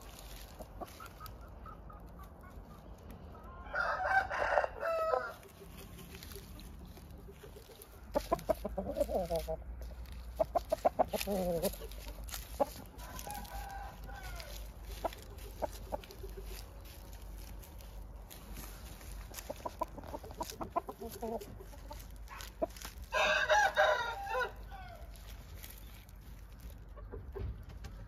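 Shamo roosters crowing twice, about four seconds in and again near the end, each crow lasting about a second and a half. In between come runs of rapid clucking calls.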